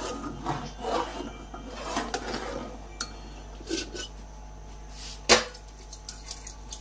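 A metal spoon scraping and clinking against the bottom and sides of a large metal pot as milk and rice for kheer are stirred without stopping, with one sharp knock about five seconds in.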